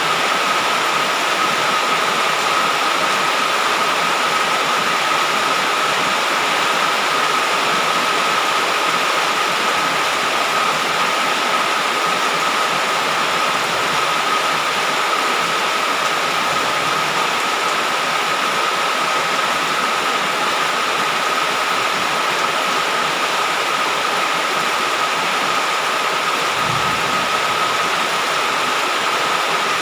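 Heavy rain falling in a steady, unbroken downpour, with a thin steady tone beneath it and one brief low thud near the end.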